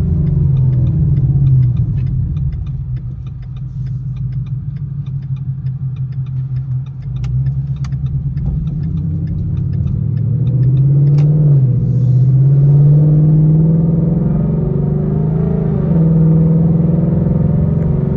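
Ford Mustang GT's V8 exhaust heard from inside the cabin, loud. It rumbles at low revs, then the car accelerates with the revs rising, drops briefly about eleven seconds in as the transmission shifts, and climbs again.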